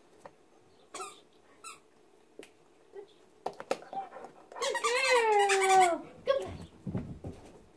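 A Rottweiler gives one long howl that falls in pitch and lasts over a second. It is the loudest sound here, and a few short squeaks and clicks come before it.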